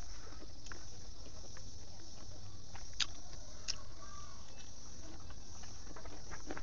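Close-up eating sounds: mouth clicks and chewing of pork intestines with rice, and fingers working through rice on a banana leaf, as scattered small clicks with two sharper ones about three seconds in, over a steady low hum.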